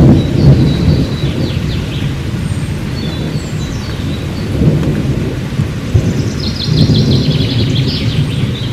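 Rolling thunder rumbling over steady rain, loudest at the start and again about seven seconds in.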